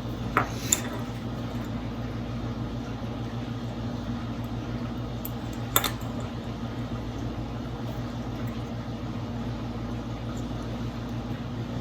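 Soldering gun's transformer humming steadily while in use, with a few sharp light clicks of the tool against the wire, two under a second in and one near the middle.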